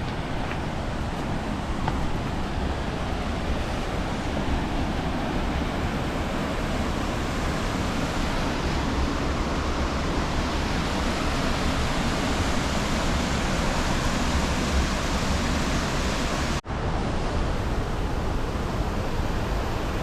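Steady rushing of the River Orchy's waterfall, with a low rumble underneath. It cuts out for an instant about three-quarters of the way through, then carries on unchanged.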